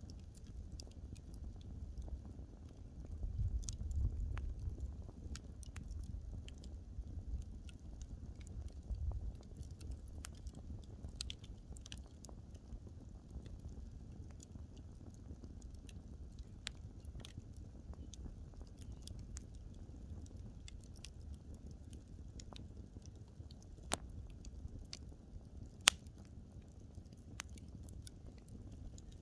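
Burning wood fire crackling, with irregular small pops over a low rumble of the flames that swells a few seconds in. A single sharp, loud pop comes near the end.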